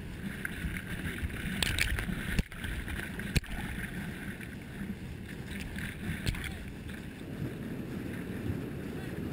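Whitewater rapid rushing steadily around a swimmer pinned in the current, with a few sharp knocks against the camera, about two and a half and three and a half seconds in.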